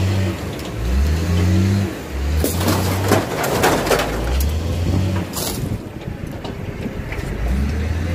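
John Deere 544K wheel loader's diesel engine revving up and down in repeated bursts as it works. About midway there are a couple of seconds of metal scraping and crunching as the crushed box truck body is dragged, then a sharp metallic clank.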